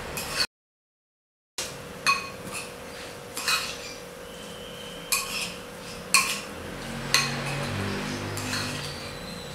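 Metal spoon stirring sambal matah in a ceramic bowl, clinking against the bowl about six times with short rings. About half a second in there is a second of dead silence.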